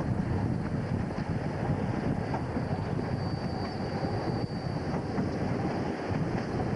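PKP SP32 diesel locomotive and its train running along the line, heard from the locomotive's side window: a steady rumble of engine and wheels on the rails, with wind on the microphone. A faint high squeal rises for a couple of seconds in the middle.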